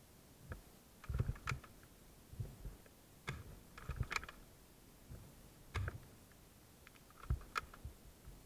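Irregular, sharp clicks and light knocks, some with a dull thud beneath, coming in small clusters about a second apart.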